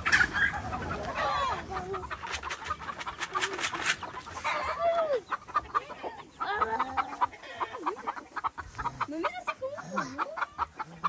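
Chickens clucking in a wire coop: runs of short, quick clucks mixed with higher calls that rise and fall.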